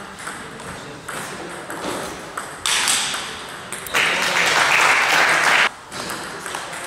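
A table tennis ball clicks sharply off the bats and table during a wheelchair table tennis rally. Once the point is won, a loud burst of crowd reaction from the hall lasts about three seconds and then cuts off.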